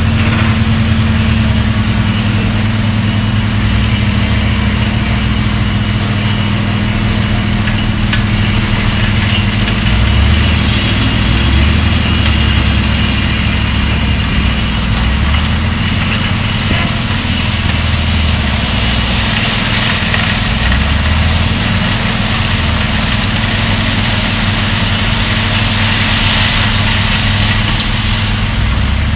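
Scania 164's V8 diesel engine running steadily as the truck's tipper trailer body lifts to dump gravel. A hiss builds from about halfway and is strongest near the end, as the load starts to slide out.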